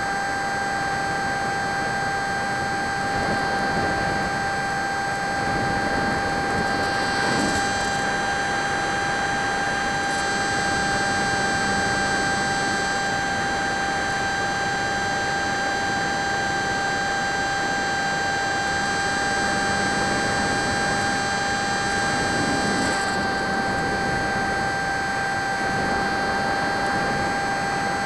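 Radio-controlled Drifter ultralight model plane in cruising flight, heard through its onboard camera: a steady motor whine held at one pitch over a continuous rush of wind and propeller noise.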